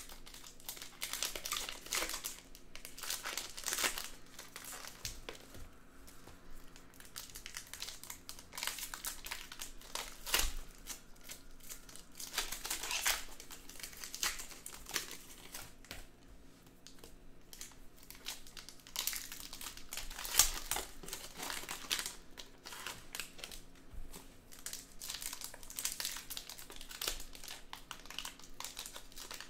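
Trading-card pack wrappers being torn open and crinkled by hand, an irregular run of crackling and rustling that goes on throughout.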